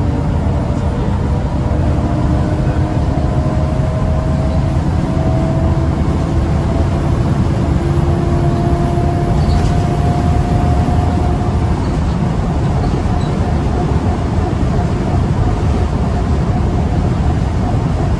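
Interior sound of a Scania L94UB bus on the move: a steady low rumble from the rear-mounted diesel engine and road, with a whine from the ZF automatic gearbox slowly rising in pitch.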